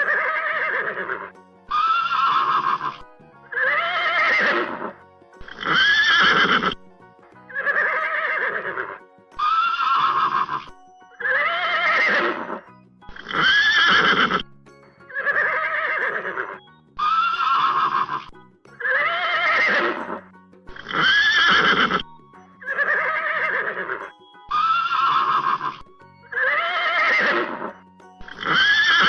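Horse whinnying, one call about every two seconds, each call rising and then falling in pitch. It is a repeated sound-effect loop.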